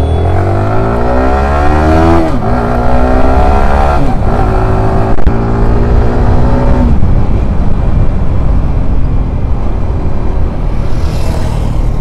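Sport motorcycle engine accelerating hard from a pull-away. Its pitch climbs and drops at gear changes about two and four seconds in, then climbs more slowly. From about seven seconds it gives way to a steady rush of engine and wind at cruising speed.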